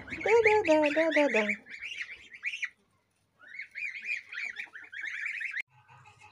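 A flock of goslings peeping in rapid, high chirps, with a short pause around the middle. The peeping cuts off abruptly near the end.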